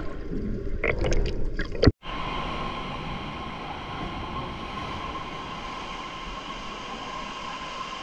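Underwater bubbling and gurgling for about two seconds, then after a brief break a steady rush of seawater surging and churning over the rocks of a sea-cave pool.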